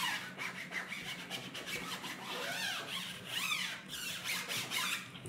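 A cloth rubbing back and forth over adhesive vinyl on a stretched screen-printing mesh, pressing the stencil down so it sticks: a steady run of scratchy strokes with squeaking now and then.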